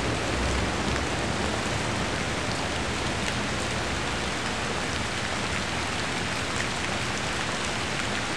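Steady rain falling on wet pavement, an even hiss with scattered faint drop ticks.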